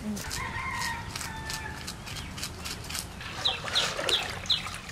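Chickens clucking, with a run of short, high, falling calls repeated about three times a second in the second half.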